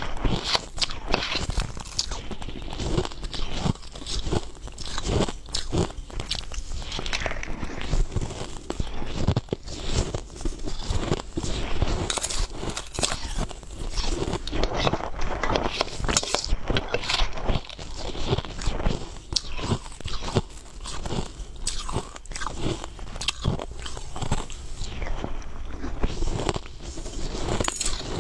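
Close-up crunching and chewing of coloured crushed ice, a dense run of crackling bites that goes on without a break.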